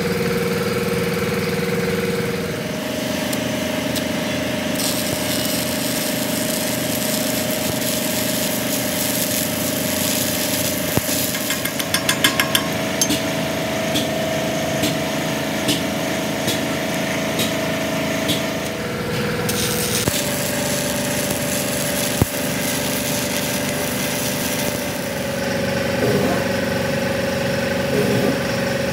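A machine's motor running steadily in the background, a hum whose pitch shifts several times. A quick run of sharp metallic taps comes about twelve seconds in.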